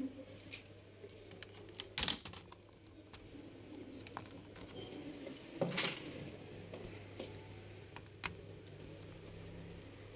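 Handling noises from taking a laptop apart: scattered clicks and taps of a screwdriver and plastic parts, with two louder clatters, about two seconds in and near the middle, as parts are moved and set down, over a steady low hum.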